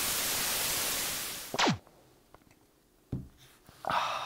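Sound effect of old-television static hissing for about a second and a half, cut off by a quick falling zap. Then a low thump, and near the end a drinking glass set down on the table with a short ring.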